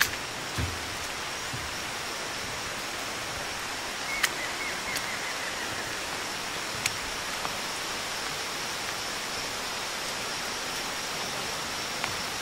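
Steady rain falling on rainforest foliage: an even, unbroken hiss, with a few sharp drip taps around the middle.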